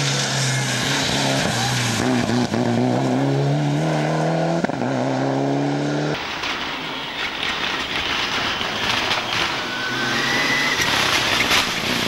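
Mitsubishi Lancer Evolution rally car's turbocharged four-cylinder engine driven hard, its note steady and then climbing slightly. About halfway the sound cuts to another passage of the car, harsher and noisier.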